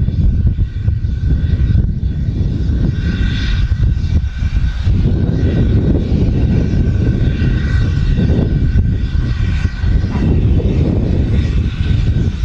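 Steam-hauled passenger train running past at a distance, with a steady low rumble that swells and fades irregularly. Faint higher tones come and go above it.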